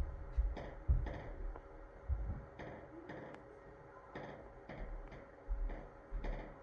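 Handling noise of a handheld phone: irregular low thumps and a few faint clicks over a faint steady hum.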